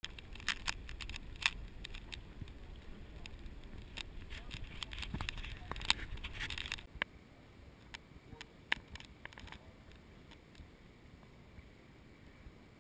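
Irregular clicks and knocks of a plastic kayak and its paddle over a low rumble; about seven seconds in the rumble stops, leaving a few scattered clicks.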